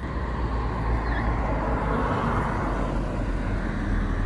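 Street traffic: a steady low rumble of passing vehicles, with one swelling past about two seconds in.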